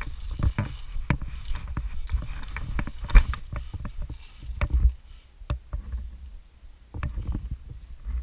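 Irregular sharp clicks and knocks over a low rumble of wind and handling noise on the camera's microphone.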